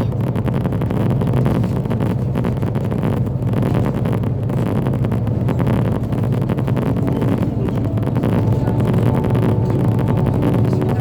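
Meteor hydrofoil's diesel engines running with a steady low drone, mixed with wind buffeting the microphone.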